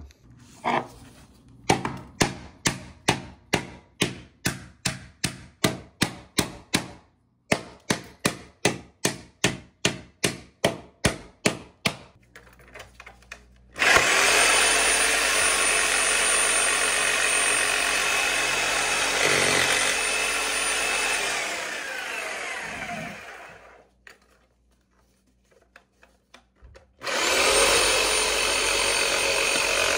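A run of sharp knocks, about two a second, for the first dozen seconds. Then a corded reciprocating saw starts with a steady whine, cutting into a PVC toilet flange; it runs down and stops about ten seconds later, and starts again near the end.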